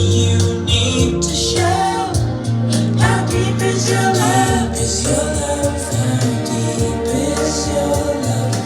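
Music: a song with sung vocals over sustained bass notes.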